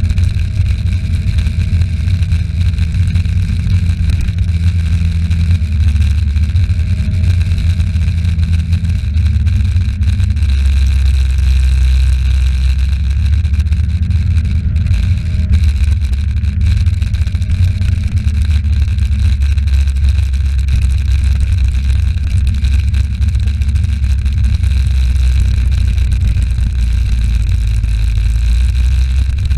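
Moped engine running steadily as it rides along, a low drone that shifts slightly with the throttle, mixed with road and wind noise.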